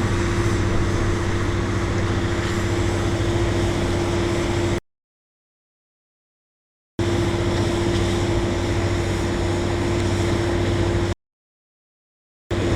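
Heavy machinery running steadily, an engine-driven drone with a constant hum. It cuts to dead silence twice, for about two seconds and then about a second.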